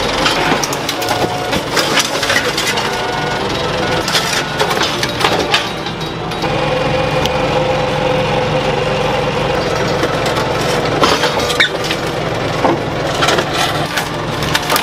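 Forklift engine running under load while the metal of a scrapped car clanks, crunches and scrapes, with many sharp knocks scattered throughout.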